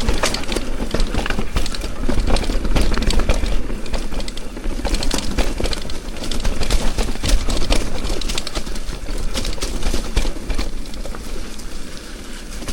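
Mountain bike moving over a dirt trail: a dense, irregular clatter of small knocks and rattles from tyres and bike, over a steady low rumble of wind on the microphone.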